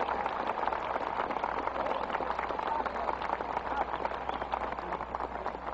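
A very large crowd applauding, with dense clapping and a few voices calling out; the applause thins a little near the end.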